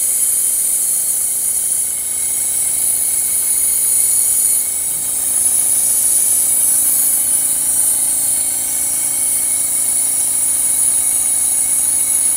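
Harbor Freight pneumatic venturi vacuum pump hissing steadily as compressed air rushes through it, pulling a vacuum on a car's A/C system.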